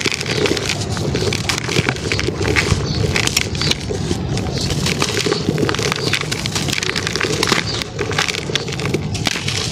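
Hands crushing a moulded block of dry red sand: a continuous gritty crunching and crumbling, a dense stream of small crackles as the grains break apart and pour down into a bowl.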